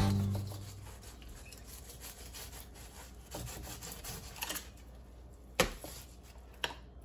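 Fillet knife cutting through a whiting along its backbone on a plastic cutting board: faint rubbing, rasping strokes, with a few sharper taps of the blade, the loudest about five and a half seconds in.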